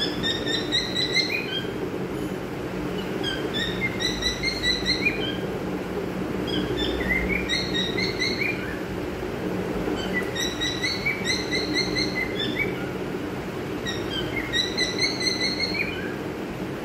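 Cockatiel whistling the same short phrase about five times, every three to four seconds, each a quick run of short stepped notes. A steady low hum runs underneath.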